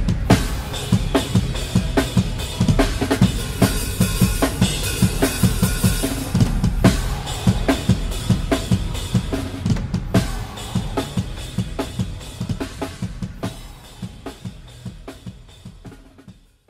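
Fast heavy metal drumming on a large drum kit: rapid kick drum strokes under snare hits and crashing cymbals, fading out near the end.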